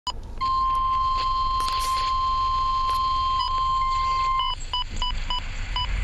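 NOAA weather radio sounding the 1050 Hz warning alarm tone for a severe thunderstorm warning: one steady high tone for about four seconds, which then breaks into a run of short beeps, two to three a second.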